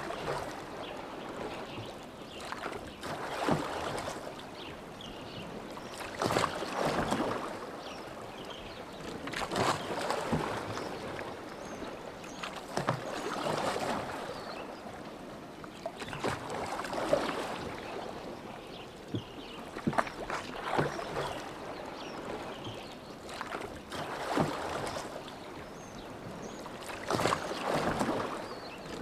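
Rowboat oars splashing through lake water in a slow, even rhythm, about one stroke every three and a half seconds, with small sharp knocks among the splashes.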